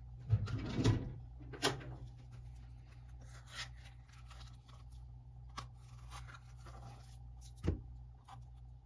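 Cream cheese being emptied from a plastic tub into a glass bowl: soft scraping and light clicks of handling, with a dull knock near the end.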